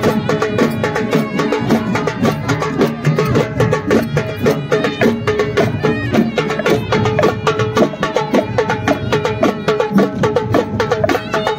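Traditional Indian folk music with fast, even drumming and a repeating melody line over it.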